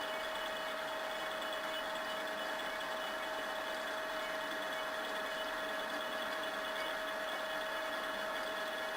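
TV-320 benchtop lathe running steadily under power: an even mechanical hum with one steady tone through it. Its change-gear train has just been coated with sticky chain lubricant, and the gears run without ringing.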